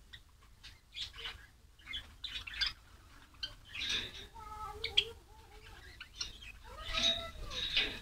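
White Java sparrows calling in a cage: a busy run of short chips, clicks and chirps, with a few wing flutters as birds shift between perches.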